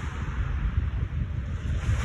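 Lake Ontario waves washing against the shore, with wind gusting across the microphone as a low rumble. The surf is at a lower ebb here, with no single crash standing out.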